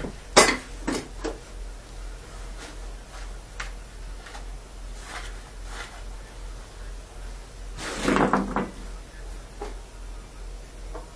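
Workshop handling noise as tools and engine parts are picked up and set down at a workbench. There is a sharp knock about half a second in, a few lighter clicks, and a longer rattling clatter about eight seconds in.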